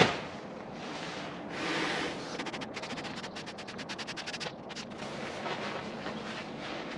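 Therm-a-Rest Trail Pro sleeping mat being blown up by mouth through its valve: strong breathy exhalations with the rustle and crinkle of the mat's fabric, including a rapid run of short crackles in the middle. A short knock right at the start.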